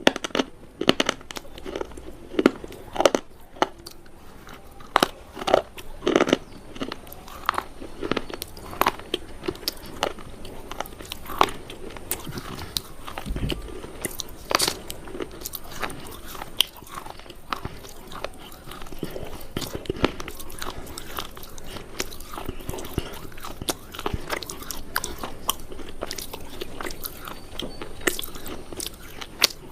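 Close-up biting and chewing of something dry and crunchy: sharp, loud crunches, which settle into a steadier run of quieter chewing crunches after about twelve seconds.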